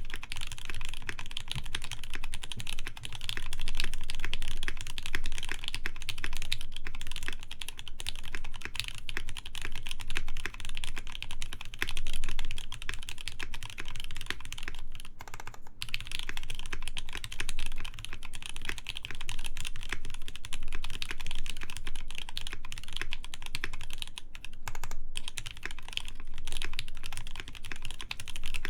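Continuous fast typing on a Noxary T60 mechanical keyboard with lubed JWK Snow White linear switches, a polycarbonate plate and PBT keycaps: a dense, even stream of keystroke clicks. There are two short pauses, about halfway through and again a few seconds before the end.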